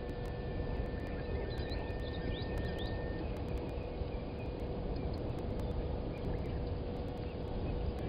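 Steady low rumble of outdoor background noise with a constant faint hum, and a few short, high bird chirps between about one and a half and three seconds in.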